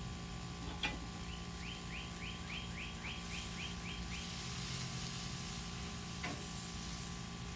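A bird singing a quick series of about ten short rising notes, about four a second, over a steady background hum. A sharp click comes just before the song and another about six seconds in.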